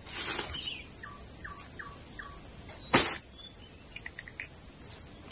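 Steady, high-pitched insect drone from the surrounding forest. A bird gives four short falling notes about a second in, and a single sharp click comes about three seconds in.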